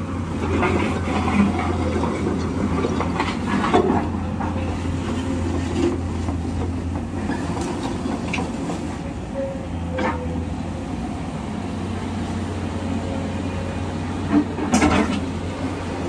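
SANY SY215C crawler excavator's diesel engine running steadily under hydraulic load as the machine swings and moves on its steel tracks, with a few metallic clanks about a second and a half, four, ten and fifteen seconds in.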